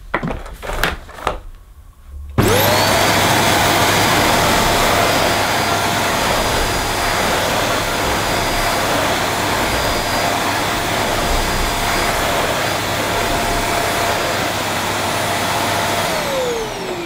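A few handling clicks, then the 1400-watt motor of a Vax Mojo II bagged cylinder vacuum cleaner is switched on, whining up to speed within a moment and running steadily. Near the end it is switched off and the whine falls in pitch as the motor spins down.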